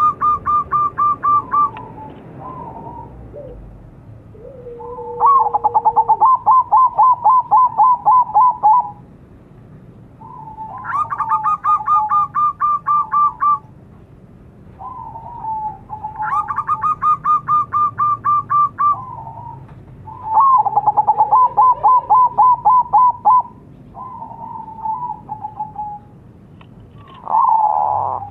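Zebra dove (perkutut) cooing: repeated phrases of quick staccato coo notes, about four a second, each phrase lasting two to four seconds with short pauses between and a few shorter phrases among them.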